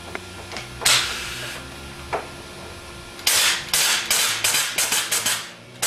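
Pneumatic carton stapler firing: one shot about a second in, then from about halfway a fast run of shots, about four a second, each a sharp snap with a hiss of air. With its air cylinder and seals freshly greased, the gun is cycling quickly again instead of sticking with the piston down.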